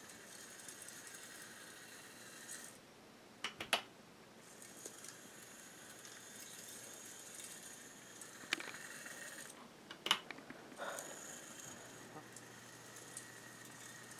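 Model diesel shunter locomotive running on its track: a faint, steady small-motor whine with wheel rattle. It dips twice, and a few sharp clicks come through, a cluster about three and a half seconds in and single ones near eight and a half and ten seconds.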